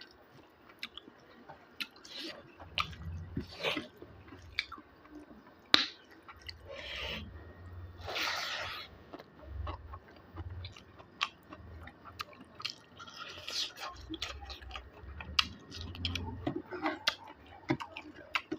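A person chewing food close to the microphone, with irregular wet smacks and clicks, and a brief hiss about eight seconds in.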